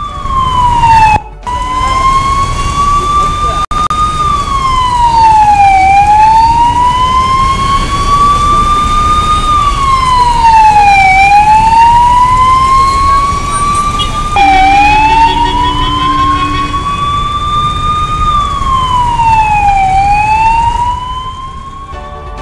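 Ambulance siren wailing, its pitch climbing slowly and then dropping quickly, once about every five seconds. It is the warning of an ambulance stuck in gridlock, calling for traffic to clear a path. A low rumble of traffic lies underneath.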